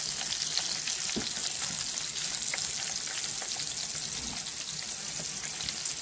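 Crawfish frying in bubbling fat in a metal pot: a steady sizzle with scattered crackles, and one brief knock about a second in.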